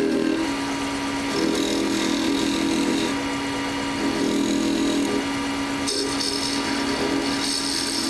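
Wood lathe running with a gouge cutting the spinning wood as the cap of a mushroom-shaped magnet is roughed to shape: a steady motor hum under the scraping hiss of the cut, which comes and goes and is strongest in the last couple of seconds.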